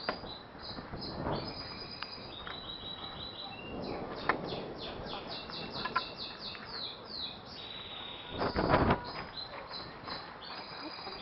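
A small bird chirping over and over in quick series of short, high notes, with a fast run of falling notes midway. A brief loud rushing noise breaks in about three-quarters of the way through.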